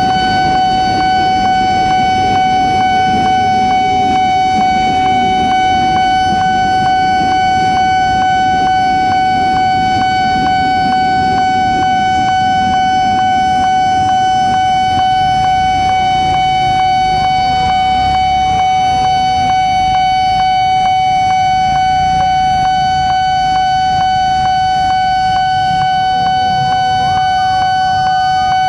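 Two railway level-crossing alarms sounding together, one a loud, unbroken ringing tone over a fast, regular pulse, while an electric commuter train rumbles past; the train's rumble eases in the second half as the last cars clear the crossing.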